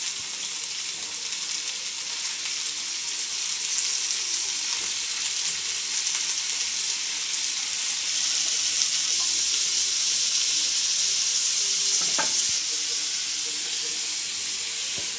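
Oil sizzling in a frying pan as sliced bitter gourd is sautéed with onions and tomatoes: a steady high hiss that gets louder about four seconds in and eases slightly near the end.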